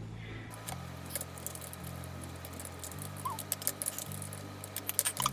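Irregular quick clicks of keys being typed on a computer keyboard, over soft background music.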